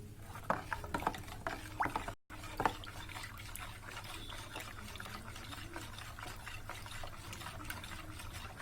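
A spoon stirring liquid jelly mix with water in a bowl, with light clinks against the side and the liquid swishing. The sound drops out for a moment about two seconds in.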